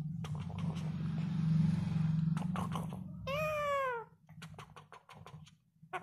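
Indian ringneck parrot mimicking a cat's meow: one falling meow-like call about three seconds in, after a low steady hum, followed by a few soft clicks.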